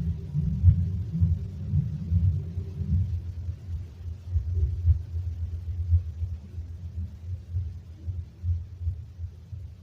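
Loud, deep rumbling noise from a played recording, uneven and pulsing, easing off somewhat toward the end.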